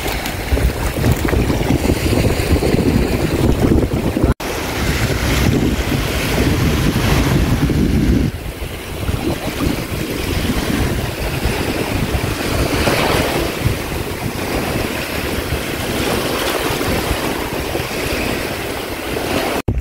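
Wind buffeting the microphone over shallow seawater washing across a reef flat, a steady rushing noise. It is heavier for the first several seconds, then eases.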